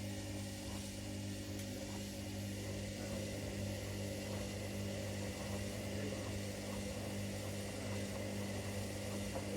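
Washing machines running mid-wash: a steady low electrical hum with a faint mechanical whir and no change in pace.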